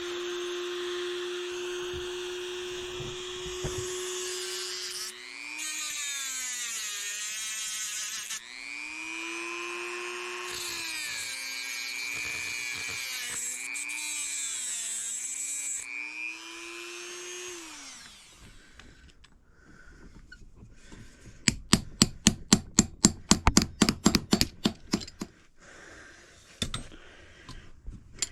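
Bench-mounted wire wheel motor running steadily, its pitch dipping and recovering again and again as the steel wrench part is pressed against the wheel, then winding down to a stop. A few seconds later comes a quick run of about fifteen sharp metal hammer blows, about five a second, the loudest sound.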